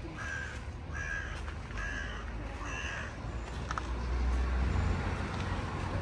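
A crow cawing four times, a little under a second apart. In the second half a low rumble swells up and becomes the loudest sound.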